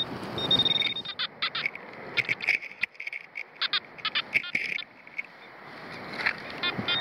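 Metal detector sounding its target tones: a short held high beep early on, then a string of quick, irregular high chirps as the coil passes over buried metal.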